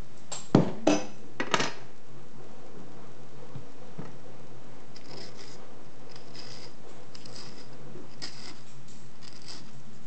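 A kitchen knife is knocked sharply three times against a hard edge, each knock ringing briefly, as the avocado pit is knocked off the blade. Then comes light, crisp scratching as the knife scores the avocado flesh.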